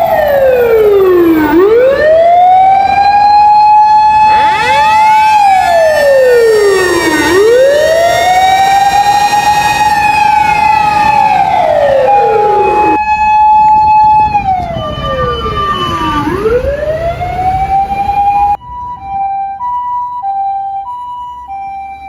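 Fire engine motor siren wailing: each cycle holds a steady high pitch, drops away, then winds back up, repeating about every five and a half seconds. Near the end a cut brings a quieter two-tone hi-lo ambulance siren, alternating about once a second.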